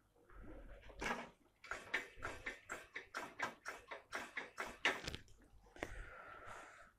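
Light, faint metallic clicking from a hand tool worked at a vintage bicycle's handlebar stem, about three to four clicks a second for several seconds in the middle. The wedge there has worked loose and developed play, and it is being adjusted.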